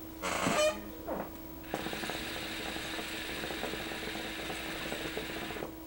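Water in a Khalil Mamoun hookah's base bubbling steadily under a long draw on the hose, a rapid crackle of bubbles with a hiss of air, starting about two seconds in and cutting off abruptly near the end.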